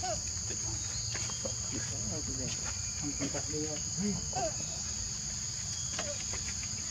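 Steady high-pitched drone of forest insects, two unbroken high tones held throughout, with faint short chirping calls scattered beneath.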